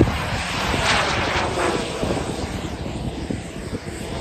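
Turbine engine of a 1:4-scale F-16 model jet in flight, a steady rushing jet sound with a whine that falls in pitch about a second in as it passes. A short knock right at the start.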